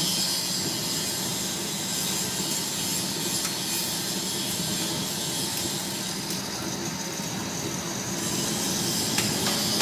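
Industrial sawdust burner running steadily at a low firing setting: a constant rushing noise from its blower and flame, with a low hum underneath.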